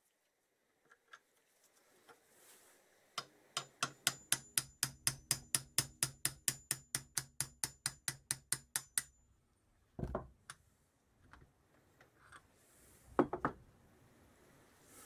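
Hammer tapping a drift to drive the gudgeon pin out of a 1977 Kawasaki KZ650 piston. After about three seconds comes a fast, even run of light metallic taps, four to five a second, for about six seconds, with the metal ringing. Two duller knocks follow.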